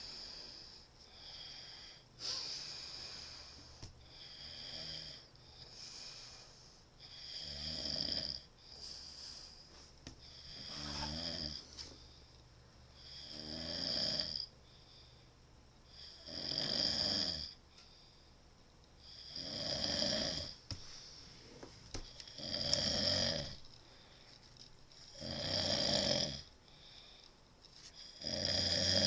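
A person snoring loudly, one rattling snore about every three seconds. The first few breaths are softer, and the snores grow louder after the first several seconds.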